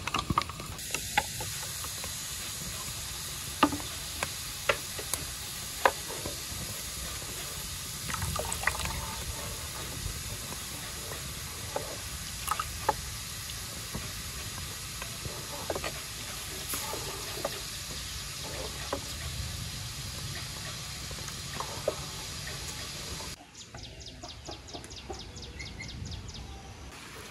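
Firewood crackling in a clay stove, with sharp pops scattered through, under a pot of sticky rice that is simmering and being stirred with a wooden spoon.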